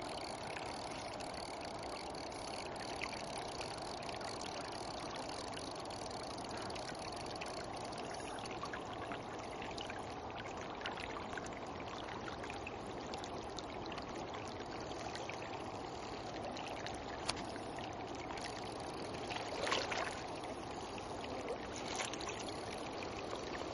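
River water flowing steadily past, a constant even rush of moving current.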